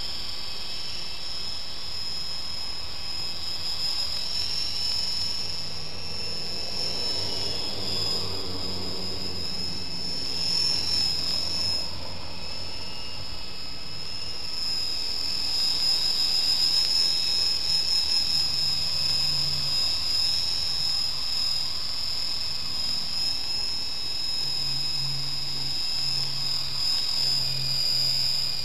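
Micro electric RC helicopter in flight: a steady high-pitched motor whine that wavers slightly in pitch as the throttle changes, with a lower rotor hum under it.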